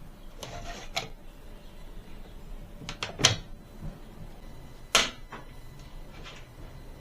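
A few sharp knocks and clicks, like a lid or door being handled, the loudest about three seconds in and again about five seconds in, with a short rustle near the start.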